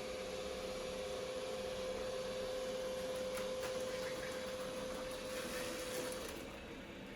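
Roborock S7 MaxV robot vacuum driving back onto its dock, its motors whirring with a steady hum and a few light clicks; the hum stops about six seconds in as the robot settles on the dock to charge.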